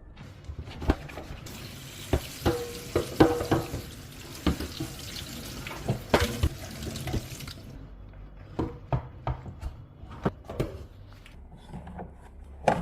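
Tap water running into a sink for several seconds, then shutting off, while the washing machine's plastic detergent tray is scrubbed and rinsed. Sharp plastic knocks and clatters come throughout, as the tray bumps the sink.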